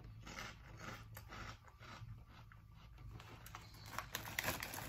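Faint crunching of a person chewing a crisp cracker chip, with a few louder crinkles of the plastic snack bag being handled near the end.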